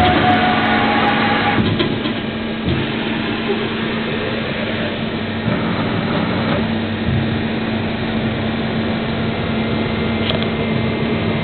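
Makino FNC60A20 CNC vertical machining centre running: a steady mechanical whirr over a constant low hum.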